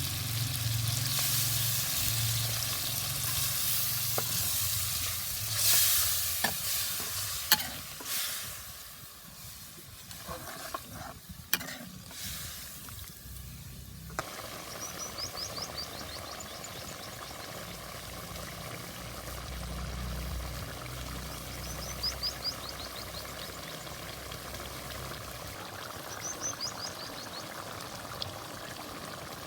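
Curry sizzling in a frying pot while it is stirred, with a few sharp knocks of the stirring spoon against the pot. The sizzle is loudest for the first eight seconds or so, then settles to a quieter steady hiss.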